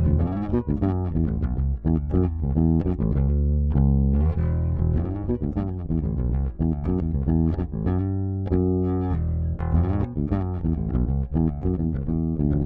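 Squier 20th Anniversary Edition Precision Bass played, a continuous run of plucked notes in a bass line with several notes a second.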